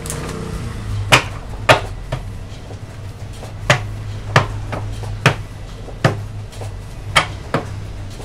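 A thick stack of paper riffled briefly, then knocked edge-down on a wooden tabletop to square the sheets: about nine sharp knocks at uneven intervals. A steady low hum runs underneath.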